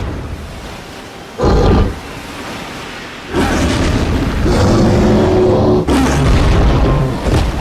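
Sound effect of Kong, the giant ape, vocalising: a short loud grunt about a second and a half in, then a long loud roar starting about three seconds in.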